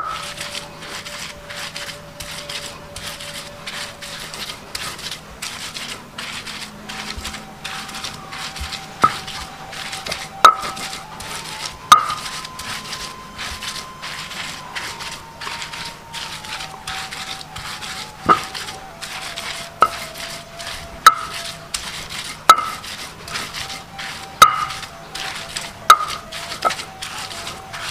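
Round stone pestle rubbing and pressing grated coconut and ground chili paste on a flat stone grinding slab, a soft scraping with each stroke. From about a third of the way in, a sharp stone-on-stone knock with a short ring comes every second and a half or so.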